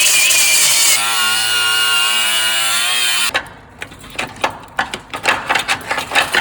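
A power tool running with a steady motor note, which stops about three seconds in. It is followed by a run of irregular sharp clicks and knocks from hand tools working on the vehicle's chassis.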